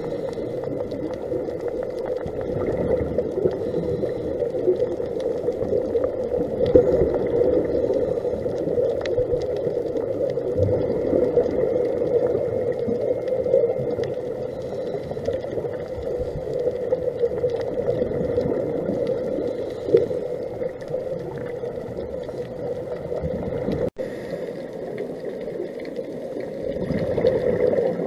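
Underwater noise picked up inside a camera's waterproof housing on a scuba dive: a steady muffled rushing, with bubbling from a diver's regulator. It drops out for an instant about four seconds before the end.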